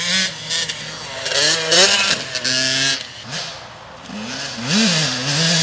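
Husqvarna TC 85 85cc single-cylinder two-stroke dirt bike engine revving as the bike rides off. Its pitch climbs and falls back several times as it accelerates. The engine is running on a newly replaced reed petal after a cracked one had made it hard-starting and rough-running.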